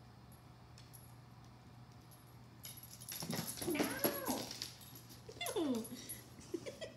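Dog whining and yowling during play: a few pitched cries that rise and fall, starting about three seconds in, with another drawn-out cry sliding downward near the end.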